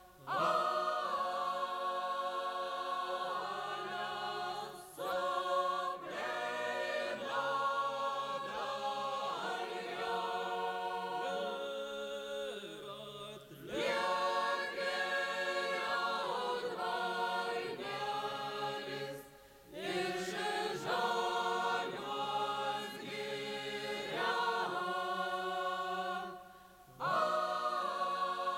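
Lithuanian folk song sung by a group of voices in long held phrases, broken three times by short pauses for breath.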